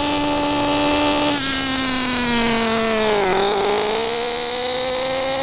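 Two-stroke nitro glow engine of an RC buggy running on a rich setting, with a low-pitched drone. Its pitch falls about a second and a half in, is lowest around three seconds, then slowly climbs again. The low pitch is the sign of a too-rich high-speed needle.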